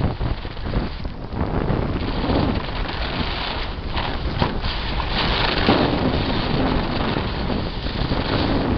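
Wind buffeting the camera microphone: a heavy, noisy rumble that swells and eases unevenly.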